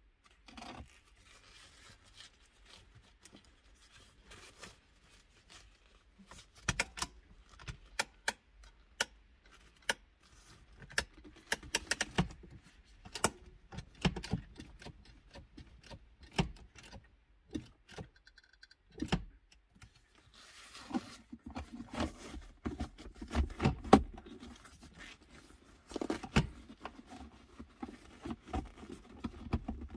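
Leather handbrake boot and plastic centre-console trim of a BMW E90 being handled and pressed into place: scattered sharp clicks and taps, with a stretch of rustling about two-thirds of the way through.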